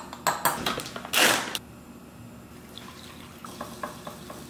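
Light metal clinks of a fine-mesh sieve and tin against a ceramic bowl, with one louder brief scrape about a second in. After that comes a faint trickle as water is poured from a glass jug onto sifted matcha powder in the bowl.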